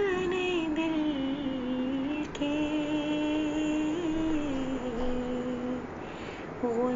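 A single woman's voice singing long held notes that glide slowly from pitch to pitch, with no clear words, like wordless humming of a melody.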